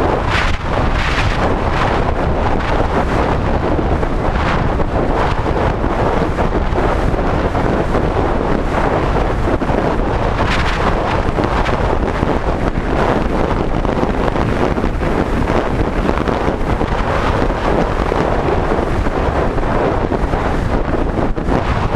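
Loud, steady wind buffeting on a helmet-mounted camera's microphone during a mountain-bike ride, over the rumble of tyres on a dirt trail, with a few sharper clatters from bumps.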